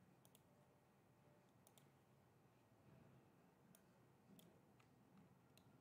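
Near silence with a handful of faint computer mouse clicks, some in quick pairs.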